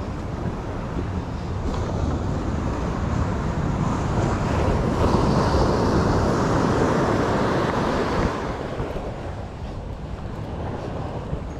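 Ocean surf rushing on a sandy beach, mixed with wind buffeting the microphone. The rush builds over the first few seconds, is loudest in the middle, and eases off about eight seconds in.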